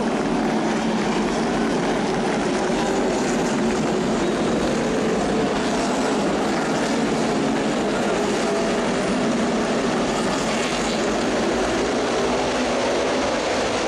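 A pack of NASCAR Cup stock cars running on the track, the steady din of many V8 engines blending together, their notes drifting up and down in pitch.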